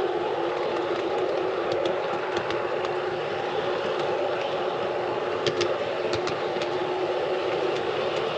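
G scale model train running along the track: a steady whir of its motor, gearing and wheels on the rails, with a few sharp clicks a little past halfway as the wheels cross rail joints.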